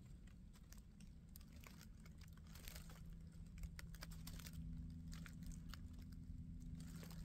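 Faint crunching and crackling of dry forest leaves underfoot as a hiker steps about, with a steady low hum underneath from about two seconds in.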